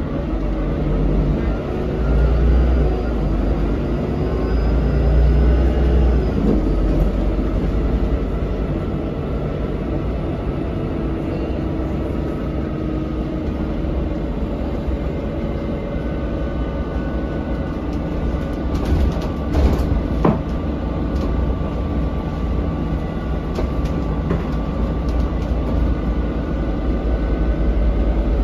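Inside a 2003 Volvo B12BLE bus on the move: the rear-mounted diesel engine and driveline run with a low drone, rising in pitch twice in the first few seconds as it pulls away and accelerates. It then runs more steadily, with a few brief rattles about two-thirds of the way through.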